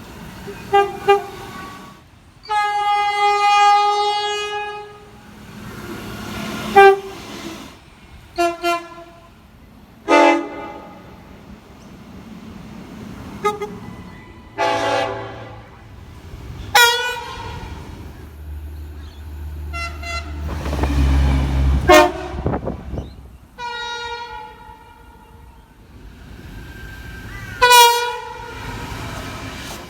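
Train horns sounding about a dozen times, mostly short toots with a few longer blasts, the pitch of the chord changing from one sounding to the next. A heavy low rumble swells in the middle, around twenty seconds in.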